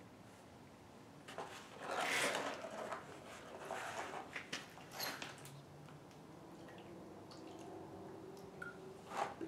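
Wet paintbrush scrubbing and dabbing in a paint tray of liquid rigidizer, a run of short squishy strokes, the loudest about two seconds in. Near the end more rigidizer trickles from a plastic bottle onto the brush.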